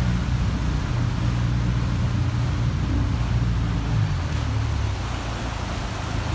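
Yamaha 150 outboard motor running steadily at about 2,000 rpm, with its propeller churning the water behind the boat.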